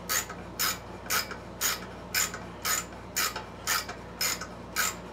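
Ratcheting tap wrench clicking in a short burst about twice a second as it is worked back and forth. It is turning an M6 helicoil tap into a drilled-out, stripped aluminum bolt hole on a Honda GCV160 mower engine.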